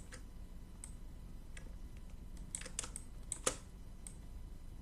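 Scattered clicks of a computer mouse and keyboard: a few single clicks, then a quick cluster of several around the middle, over a faint low hum.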